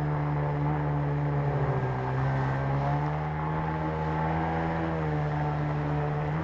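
Outboard motor with a water-jet drive pushing an inflatable boat upstream through shallows, running hard. Its pitch drops about two seconds in, then rises again a second later, with another change near the end.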